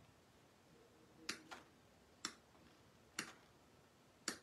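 Wire cutters snipping through the wire stems of an artificial greenery pick: five sharp snips roughly a second apart, the first two close together.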